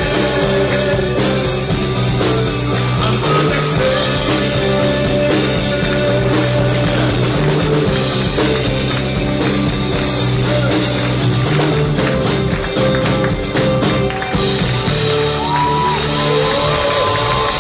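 Rock band playing live: guitars, bass, drums and a singer. About twelve seconds in, the band plays a short stop-start passage of sharp hits, then notes slide upward near the end.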